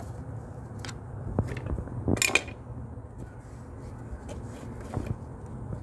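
Flathead screwdriver clicking and scraping against the metal hose clamp on the clutch fluid reservoir hose, with a louder run of metal scrapes about two seconds in as the hose is worked loose.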